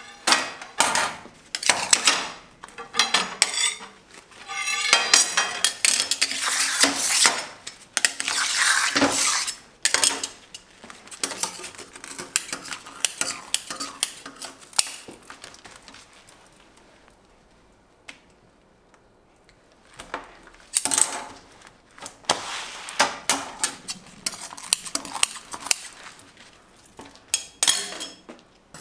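Metal scraper and scissors scraping and knocking on a stainless-steel worktable as a slab of hot sugar candy is scraped up and folded, in repeated scrapes and clicks with a quieter stretch a little past the middle.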